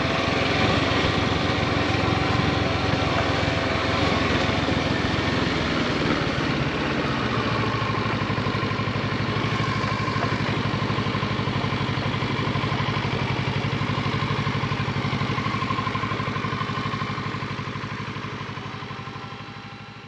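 Kawasaki Versys 650 parallel-twin motorcycle engine running, settling to a steady idle about seven seconds in, then fading out near the end.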